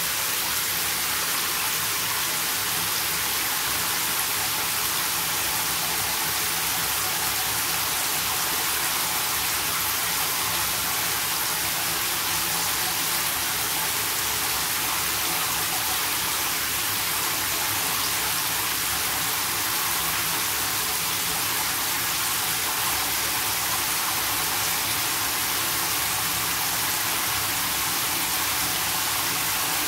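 Shower head spraying into a jetted bathtub, filling the bath. Water falls steadily onto the tub floor with an even hiss and no change throughout.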